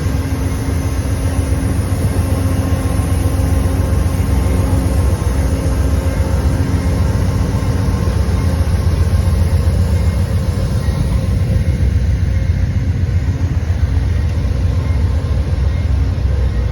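Diesel locomotive engine running with a steady low rumble and faint steady tones over it.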